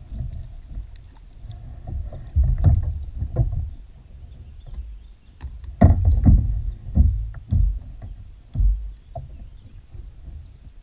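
Irregular thumps and knocks against a plastic fishing kayak's hull as an arrow-shot common carp is hauled in alongside, loudest about six seconds in.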